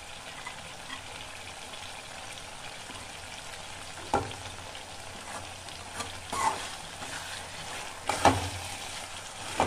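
Chicken korma sizzling as it fries in a metal kadhai. A spatula knocks and scrapes against the pan several times in the second half as the masala is stirred, the loudest knock about eight seconds in.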